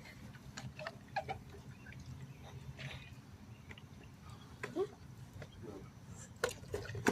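Scattered light clicks and taps, with faint voices in the background.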